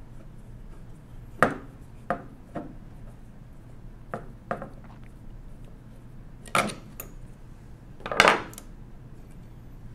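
Scattered sharp metallic clicks and clinks as a large screwdriver works a steel screw loose from the metal frame of a 1920s Monroe Model K mechanical calculator, the loudest a little over a second before the end.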